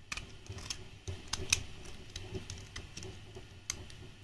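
Craft knife blade scraping and trimming plastic stringing off a 3D-printed PLA part: irregular small clicks and scrapes as the blade catches the edges, with the part handled in the hands.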